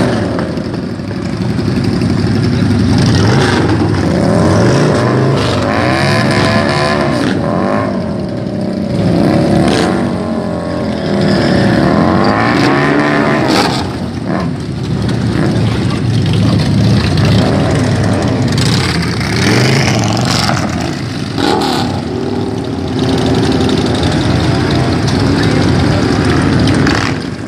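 Several cruiser motorcycles, Harley-Davidson V-twins among them, idling and being revved close by. The engine pitch rises and falls again and again as throttles are blipped.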